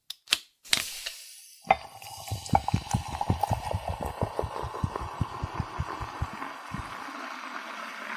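A soda can cracked open with a few sharp clicks, then poured into a glass: the liquid splashes and fizzes steadily, with a rapid run of gurgling pops that thins out toward the end.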